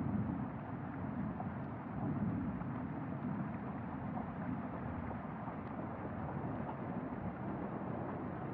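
Steady low rumbling noise, a drone-like texture in an ambient soundscape, swelling slightly at the start and again about two seconds in.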